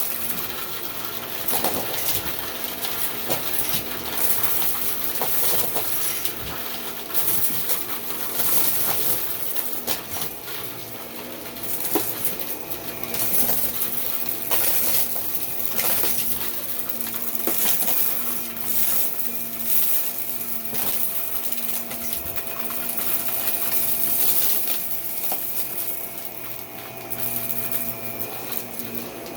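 Many small hard objects clinking and rattling, with a faint steady hum underneath.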